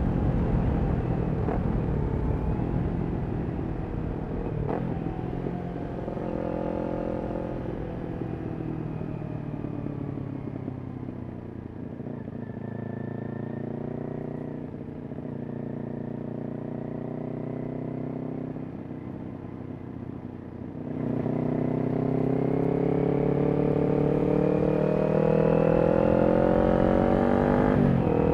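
Kawasaki Ninja 400's parallel-twin engine through a Yoshimura exhaust, heard while riding. The revs fall away for about twelve seconds and run low and steady, then about three-quarters of the way in the throttle opens and the revs climb until a gear change near the end.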